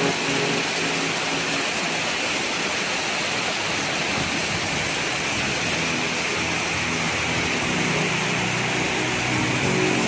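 Waterfall and rushing river water making a steady, even rushing noise with no pitch to it.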